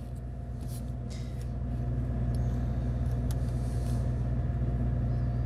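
Steady low machine hum with a few fixed pitches, a little louder from about two seconds in, with a few faint light clicks of balsa sticks being handled and set down.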